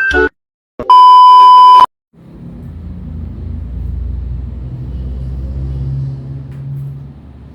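The tail of a chiming intro jingle stops, then a loud electronic beep holds one pitch for about a second. After a short silence a low rumble rises, swells and fades away.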